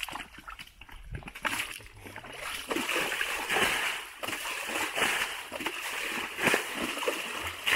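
Wet mud and water splashing and sloshing as a bucket is scooped and tipped through a drained pond bed, with many short, irregular wet splats.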